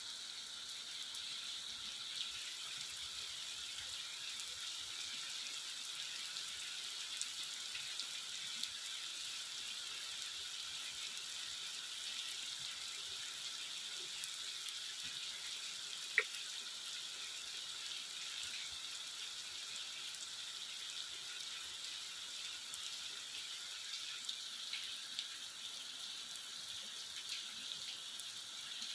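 Heavy rain falling steadily on a paved road, an even hiss of drops and running water, with one sharp click about halfway through.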